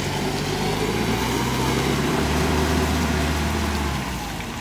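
Toyota 4Runner's engine running steadily under load as the truck crawls up a muddy trail, fading about four seconds in as it pulls away.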